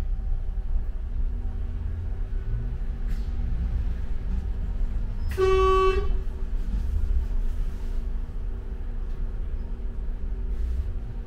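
Low rumble of a bus engine and road noise heard on board a moving London bus, with one short vehicle horn toot, about half a second long, midway through.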